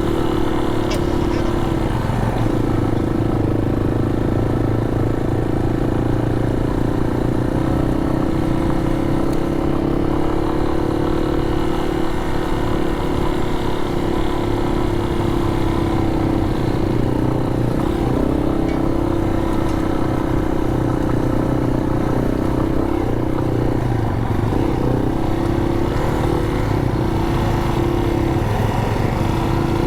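Yamaha Serow 250's air-cooled single-cylinder engine running at fairly steady revs while riding a gravel forest road, with only slight dips in pitch now and then.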